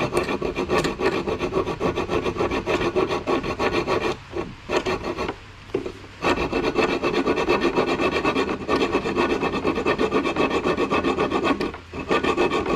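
Small handheld hacksaw sawing through a metal rivet in quick, even back-and-forth strokes, with short breaks about four seconds in, around five to six seconds in, and near the end.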